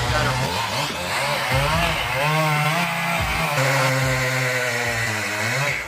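Chainsaw running, its engine pitch rising and falling repeatedly as it revs and cuts.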